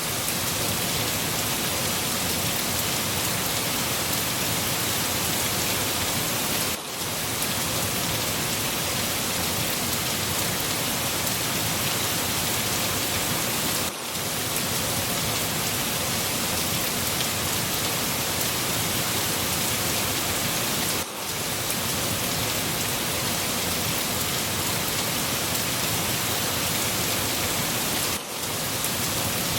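Steady rain falling, an even hiss that is strongest in the high range. About every seven seconds the level dips briefly.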